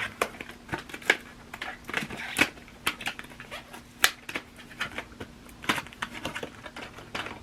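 A just-opened package handled by hand: irregular clicks, taps and crinkles as the packaging is pulled apart and its contents taken out, with a few louder snaps.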